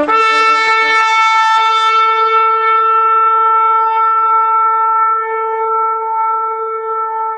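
Shofar (ram's horn) sounding one long, steady blast that starts abruptly and holds a single note. The tone is brightest in the first couple of seconds, then mellows slightly as it is sustained.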